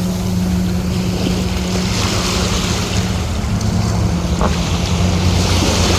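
Wind buffeting the microphone and surf washing, over a steady low engine hum.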